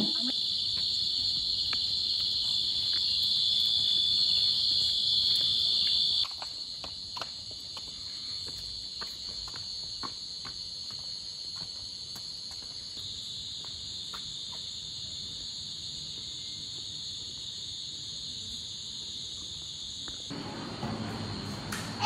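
Crickets chirring at night in a steady, high-pitched, unbroken drone. It drops suddenly to a lower level about six seconds in.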